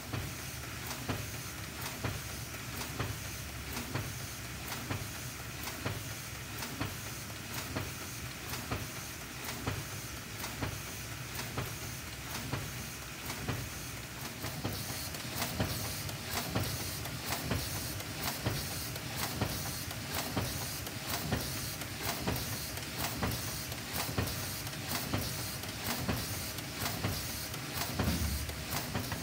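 Ecosystem Quick 76 film laminator running with its automatic sheet feeder, a steady machine hum broken by regular, evenly spaced clicks as sheets are picked and fed. A higher hiss grows stronger about halfway through.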